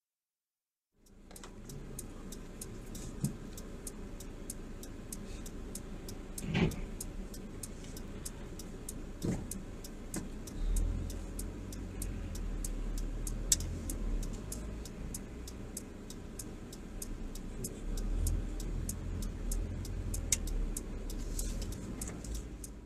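Car driving on wet winter roads, heard from inside the cabin: steady road and engine noise with many small ticks and a few sharper knocks. A heavier low rumble comes in about ten seconds in.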